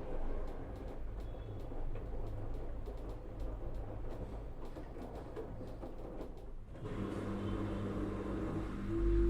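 LG FHT1208SWL direct-drive front-load washing machine running a cotton wash, with scattered light clicks for about seven seconds. It then changes abruptly to a steadier hum, and a motor whine starts rising near the end.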